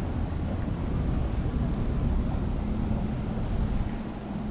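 Street ambience: a steady low rumble, with a car driving past over cobblestones.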